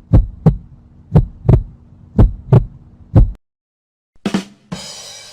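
Heartbeat sound effect: deep double thumps (lub-dub) about once a second, four beats, stopping about three seconds in. Near the end a short hit and a bright shimmering whoosh effect begin.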